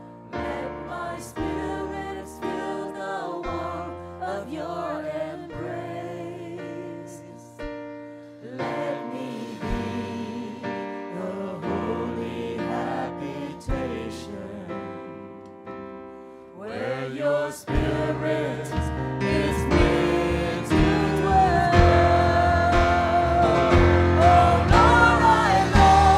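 A worship team of several voices singing a slow Vietnamese praise song together over instrumental accompaniment. A little past the middle the music swells fuller and louder.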